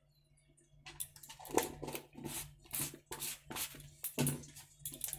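A plastic spoon scooping turmeric powder from its container and shaking it onto raw chicken in a steel bowl: short irregular scrapes and taps, starting about a second in.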